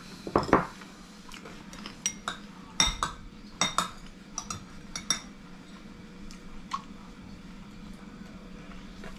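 Chopsticks and a spoon clinking and tapping against ceramic bowls while people eat: irregular light clinks, most of them in the first five seconds, with a last couple about a second later.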